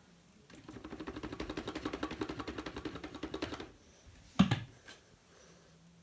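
Plastic vacuum dust bin rattling rapidly for about three seconds, about a dozen knocks a second, as it is shaken to knock out compacted fluff, then one sharp knock.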